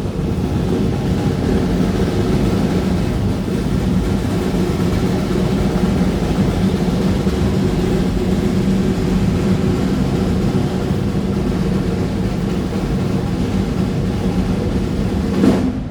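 A heavy engine running steadily with a low hum. It cuts off abruptly near the end.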